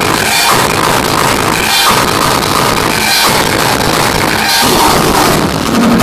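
Loud electronic dance music played from DJ decks over club speakers, with a drum beat and a phrase that repeats about every second and a half.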